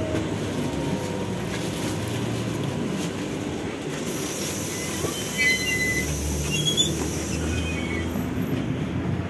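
Trolleybus standing at its stop with the doors open: a steady hum and noise from the vehicle and the street, with a few faint short high chirps past the middle.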